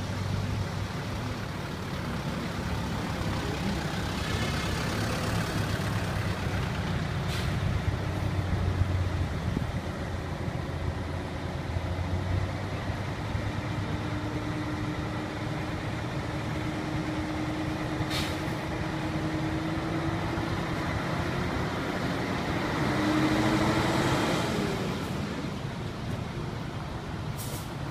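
Diesel engine of a heavy tractor truck hauling a bridge girder on a long trailer, running at low speed with a steady low hum. Its pitch rises slowly through the second half and it is loudest near the end as it draws close. Three brief sharp sounds are heard.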